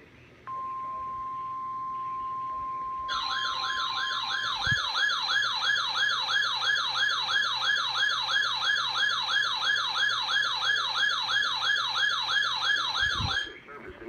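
NOAA Weather Radio's 1050 Hz warning alarm tone, one steady tone. About two and a half seconds in, a weather alert radio's warbling siren alarm joins it, sweeping up and down about three times a second, and the steady tone drops out soon after. The siren cuts off abruptly shortly before the end, and there are two low thumps, one early in the siren and one just before it stops.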